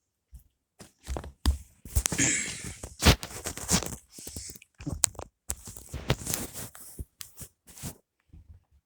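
Irregular knocks, clicks and rustling from plastic upright vacuum cleaners being handled and moved about, loudest about three seconds in, stopping about a second before the end.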